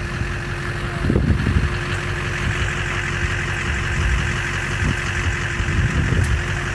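Vehicle engine idling steadily, a low even rumble with a thin constant hum over it.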